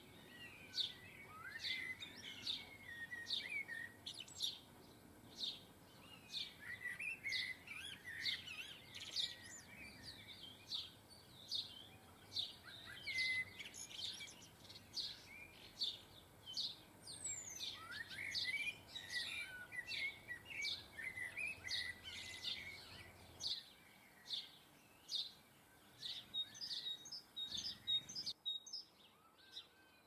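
Garden songbirds singing and chirping: a steady run of short, high chirps in quick succession, mixed with warbling song phrases.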